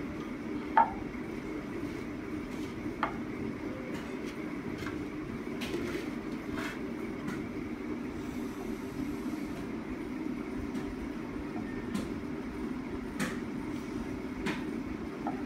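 A steady low hum with scattered light knocks and clicks, the sharpest about a second in, from rolling out dough with a wooden rolling pin on a round board.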